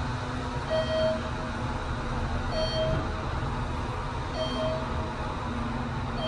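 Thyssenkrupp machine-room-less traction elevator travelling down, a steady rumble of the moving car heard inside the cab. A short electronic beep repeats about every two seconds, three times.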